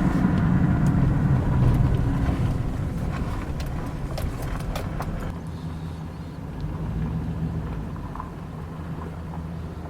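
A motor vehicle running: a low steady rumble that eases off a little after a few seconds, with a few faint clicks.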